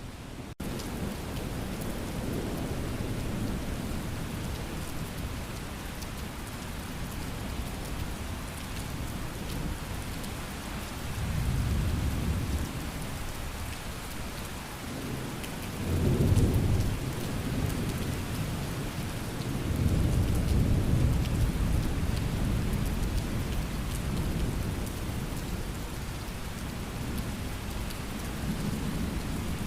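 Steady rain with thunder rumbling low in the background. Three long rumbles swell and fade: one a little before halfway, the loudest just after halfway, and another about two-thirds of the way through. The sound cuts out for a split second near the start.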